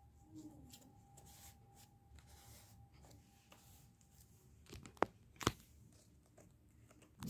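Faint rustling of paper as torn pieces of coloured paper are handled and pressed onto a journal page, with two sharp taps about five seconds in, half a second apart.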